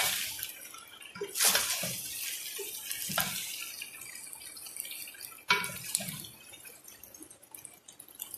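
Spatula stirring and tossing cooked macaroni in a metal pot: a handful of scraping, wet strokes a second or two apart.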